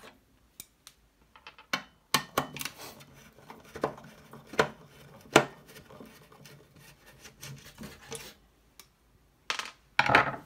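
Hand handling noise from the CRT mount and small parts inside a plastic monitor case: scattered clicks, knocks and small clinks, irregularly spaced, with a short rustle near the end.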